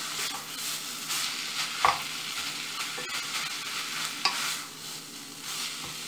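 Tuna and corn pie filling sizzling steadily in a hot pot, with a few sharp clicks of a spoon about 2 s and 4 s in, and a wooden spatula stirring the filling near the end.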